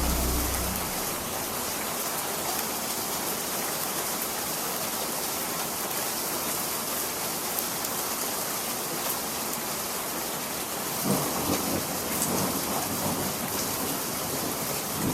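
Steady rain hiss, with the last of a song fading out in the first second. Thunder rumbles low from about eleven seconds in and swells near the end.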